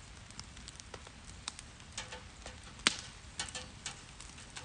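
Campfire crackling in a fire pit under a grill grate: irregular pops and ticks, with one sharper snap about three seconds in.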